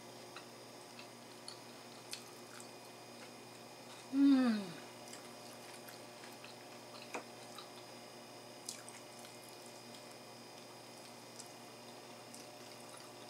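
A person eating at a table: faint scattered clicks of a fork against a plate and soft chewing. About four seconds in there is one short hum of the voice that falls in pitch.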